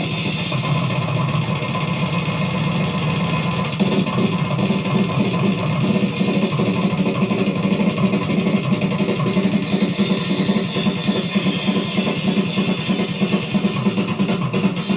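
Death metal recording playing: fast, dense drumming with distorted electric guitars.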